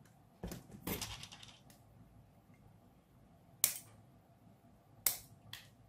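Side cutters snipping the leads of a newly soldered capacitor on a phone charger's circuit board: two loud, sharp snips about a second and a half apart in the second half. Lighter clicks from handling the board come about half a second to a second and a half in.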